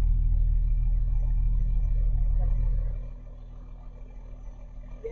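School bus engine rumbling, heard from inside the bus near the front door. About three seconds in the rumble drops sharply to a much quieter low hum.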